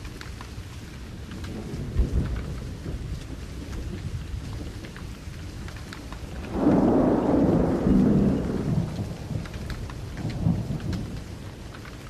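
Steady rain falling, with thunder rolling: a short rumble about two seconds in, a loud peal of about two and a half seconds just past the middle, and a smaller rumble near the end.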